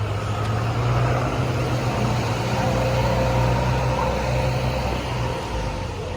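A bus engine running, a steady low hum that grows louder for the first few seconds and then eases off near the end.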